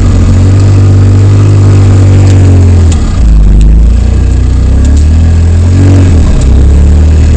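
Polaris RZR side-by-side engine heard from inside the open cab while crawling over rock, loud throughout. The revs drop about three seconds in, climb again, then fall back near six seconds.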